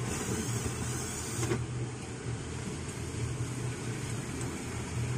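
Steady low background hum, with a single light click about a second and a half in as the rice cooker's metal top plate is worked loose by hand.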